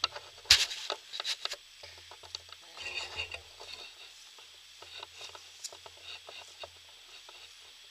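Footsteps crunching and rustling through dry grass, with a sharp knock about half a second in and a thicker patch of crackling around three seconds.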